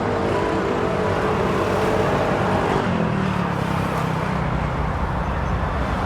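A steady rushing noise with a few held musical notes over it; the low notes slide lower about three seconds in.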